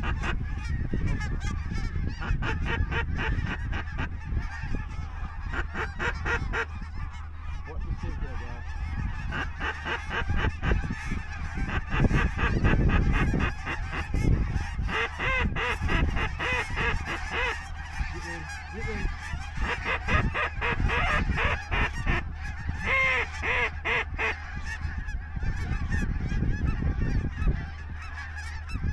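Geese honking, many calls in quick succession.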